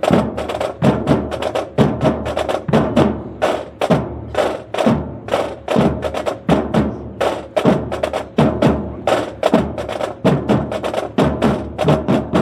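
Military drum corps playing a fast percussion cadence: sharp drum strikes several times a second, with a steady pitched tone underneath.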